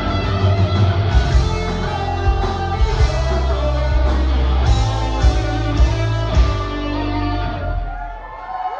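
Rock band playing live: distorted electric guitar over heavy bass and drum hits. The sound dies away near the end as the song closes.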